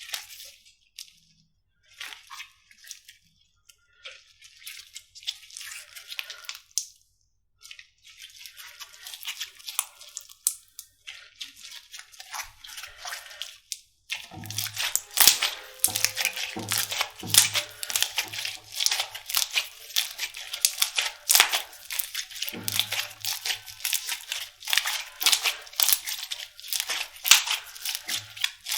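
Slime being squeezed and worked by hand, with crackling, popping clicks. The clicks come in short scattered bursts at first, then turn dense and louder from about halfway through.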